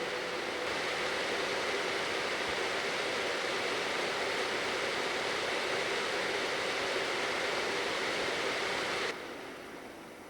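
Cooling fans of an EVGA GTX 1080 ACX 3.0 graphics card spinning at high speed: a steady, loud rush of air with a faint whine. It rises slightly about a second in and cuts off sharply near the end, leaving a fainter hiss.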